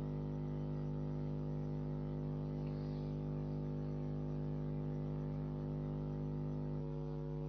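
Steady low electrical hum, a buzz of several held tones that does not change.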